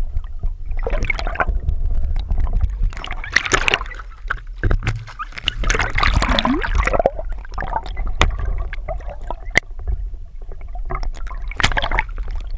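Water sloshing and gurgling around a camera held just below the surface, heard muffled, with a steady low rumble, several swells of splashing noise and scattered small knocks and clicks.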